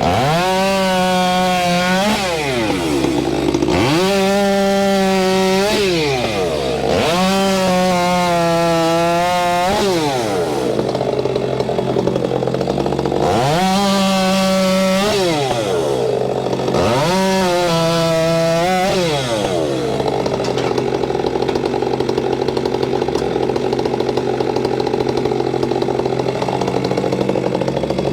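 Stihl MS462C two-stroke chainsaw bucking walnut logs. It revs up to full throttle and falls back toward idle every few seconds, cut after cut, then holds one longer steady cut near the end before revving again.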